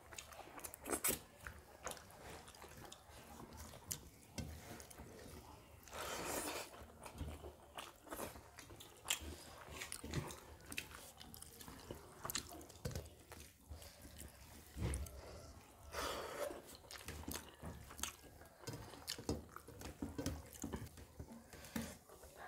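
Two people eating rice and fish pakoda curry by hand: close wet chewing and lip smacking, with fingers mixing and squishing rice and curry on steel plates, in many small irregular clicks.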